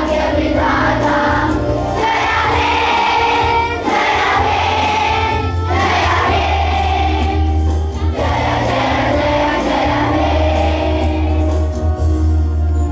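A group of schoolchildren singing together in unison, with long held notes in the second half, over a steady low accompaniment.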